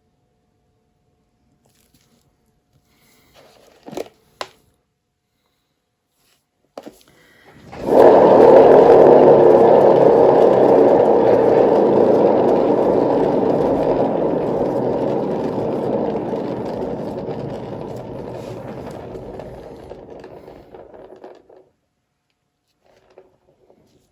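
Paint-pouring spinner turntable, set spinning about eight seconds in with a loud rattling whir that slowly dies away as it coasts to a stop. A couple of light knocks come before it.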